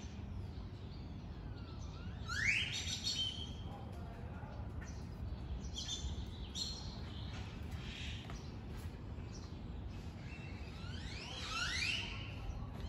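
Bird calls: sharp rising whistled notes about two seconds in and again near the end, with fainter short chirps in between, over a steady low background rumble.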